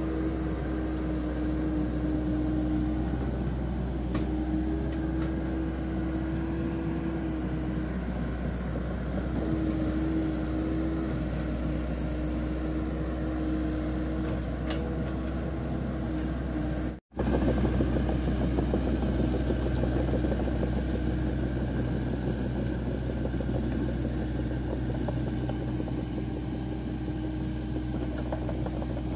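Hitachi 100 excavator's diesel engine running steadily while it works and then travels on its steel tracks, with a whine that comes and goes in the first half. The sound drops out abruptly for an instant a little past halfway.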